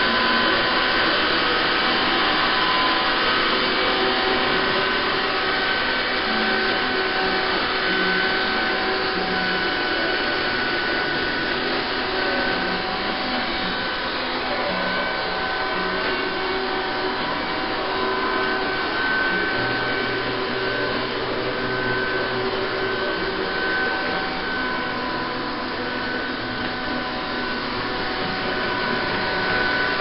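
Topan TP-AVC701/702 robot vacuum cleaner running over carpet: a steady motor whir with a high whine over it.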